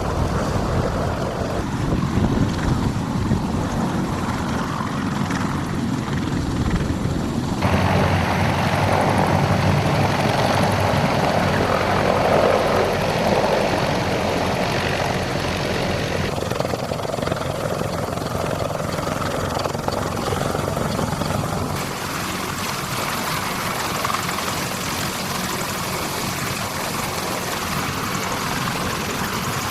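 CH-53E Super Stallion heavy-lift helicopter's rotors and three turboshaft engines running, a loud steady drone. Its tone changes abruptly about 8, 16 and 22 seconds in.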